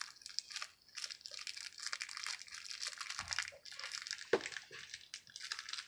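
Plastic toy packaging crinkling and rustling as it is opened by hand, with two soft knocks about three and four seconds in.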